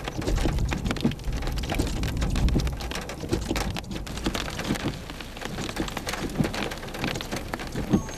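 Rain striking a vehicle's windshield in many quick drop hits over a steady low rumble.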